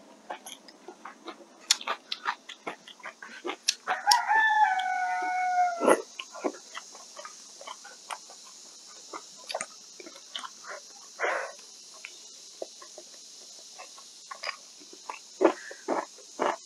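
A rooster crows once, about four seconds in: a single call that rises and then holds for about two seconds. Around it are scattered soft clicks of chewing and of chopsticks against a rice bowl.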